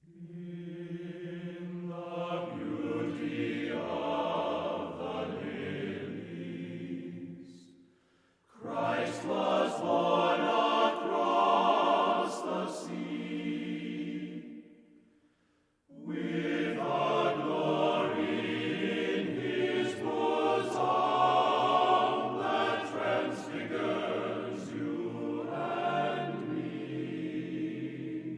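Background music of slow, sustained chords in three long phrases, each separated by a brief pause.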